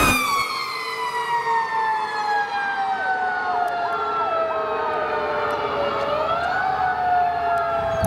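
A fire rescue truck's Federal Q mechanical siren winding down in one long falling whine. About six seconds in it is spun back up briefly, then falls again. A fainter electronic siren cycles underneath.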